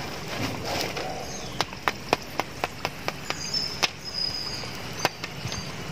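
Crispy double-fried french fries crunching and snapping: a string of about ten sharp, irregular cracks starting about a second and a half in, the sound of a well-crisped fry crust breaking.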